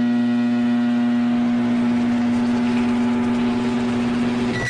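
Emergency alert alarm tone: a loud, harsh, steady electronic buzz on one low pitch with many overtones and a hiss behind it, starting abruptly and holding unchanged.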